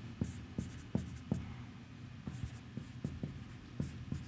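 Marker pen writing on a whiteboard: faint, irregular taps and short squeaks of the tip as symbols are drawn.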